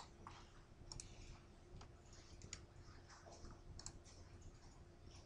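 Faint, irregular clicks of a computer mouse as sliders are dragged and buttons pressed, over a low steady room hum.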